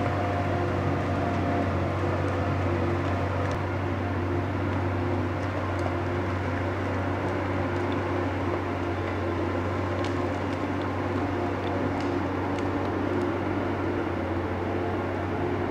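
NOE 170-6R forestry skidder's 6.7-litre six-cylinder diesel engine running steadily with a low drone, with a few faint clicks over it.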